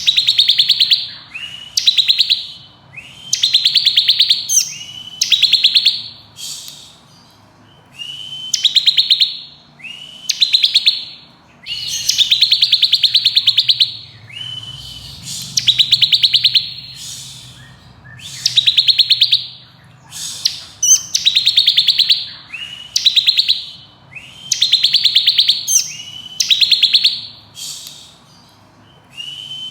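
Bar-winged prinia (ciblek kristal) singing its fast rattling 'ngebren' song: buzzy, machine-gun-like trills a second or two long, repeated with short pauses about every two seconds.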